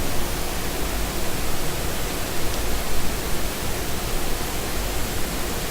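Steady, even hiss with a low hum underneath and no distinct events.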